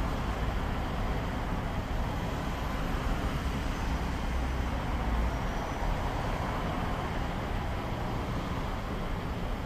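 Steady road-traffic noise: an even rumble and hiss of passing vehicles, with no single event standing out.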